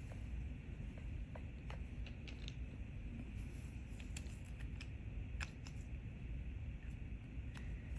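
Scattered light clicks and ticks of small items such as polish bottles being handled on a table, over a steady low rumble.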